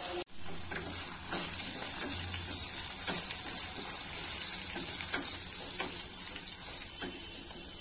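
Cashew nuts and cumin seeds sizzling steadily in hot oil in a pan, with a wooden spatula stirring them and making faint light scrapes every second or so.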